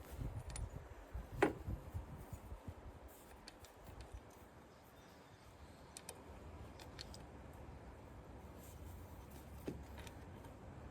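Wind buffeting the microphone, with light clicks and ticks of small parts being handled. The sharpest click comes about one and a half seconds in, and another near the end.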